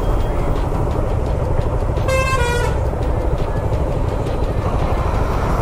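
Motorcycle engine and road noise in slow, heavy traffic, a steady rumble, cut by a single short vehicle horn blast of under a second about two seconds in, dropping slightly in pitch partway through.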